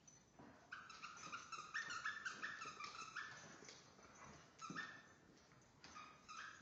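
Squeaky dog toy being chewed by a dog, giving a run of short high squeaks that jump between a few pitches, then a few single squeaks later on.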